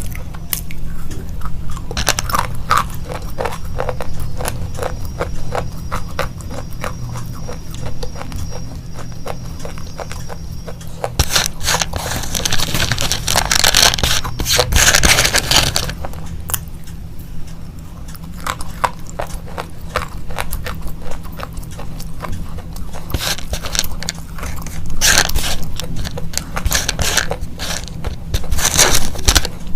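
Slate pencils being bitten and crunched between the teeth and chewed close to the microphone: a dense run of sharp crackling snaps, with a louder stretch of grinding crunch near the middle.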